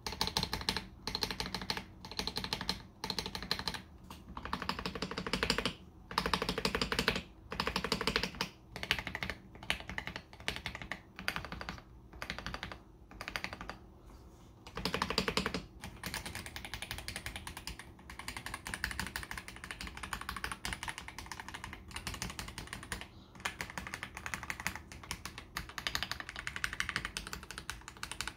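Typing on a KBD67 Lite R3 mechanical keyboard fitted with stock, unlubricated AKKO CS Jelly Black heavy linear switches. Fast keystrokes come in bursts with short pauses for the first half, then run as a steadier stream.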